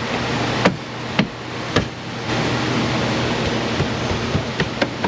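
Plastic interior trim panel being handled and fitted back into place: a few sharp clicks and knocks over a steady background hiss.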